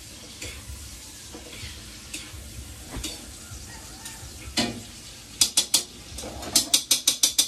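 Food sizzling in a wok on a gas stove while a metal utensil stirs and scrapes through it. From about five seconds in comes a run of quick, sharp metallic taps, about six a second, the loudest sounds here.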